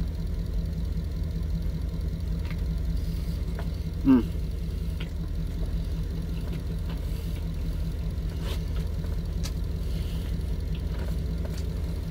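Truck engine idling steadily, heard from inside the cab, under faint chewing sounds. A short hum from the eater about four seconds in.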